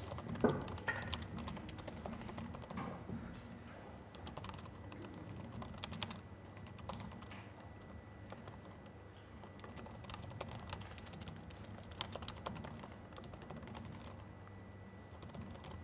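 Typing on a laptop keyboard: faint, irregular key clicks in uneven runs, over a steady low room hum.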